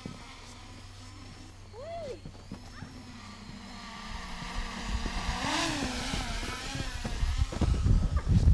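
A 3D-printed mini tricopter's electric motors whining, their pitch rising and falling with the throttle. A gusty low rumble, like wind on the microphone, grows louder toward the end.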